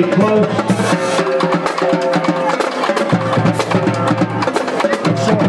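Marching band playing: held brass notes moving through a tune over a drumline's rapid drum hits.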